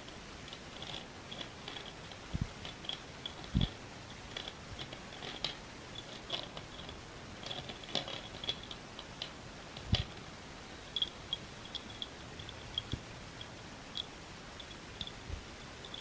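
Pieces of school chalk being bitten and chewed close to the microphone. The sound is an irregular run of small crisp crunches and clicks, with a few louder low knocks.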